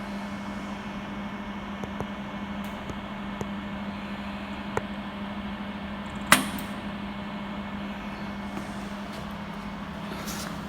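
Jewelry YAG laser welder firing single pulses, each a sharp tick, evenly spaced about a second and a half apart, with a much louder snap a little past halfway, over the machine's steady low hum.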